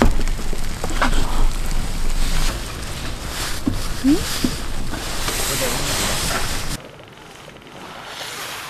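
Wind buffeting the microphone: a loud, rough rumbling noise that cuts off abruptly near the end, leaving a much quieter background.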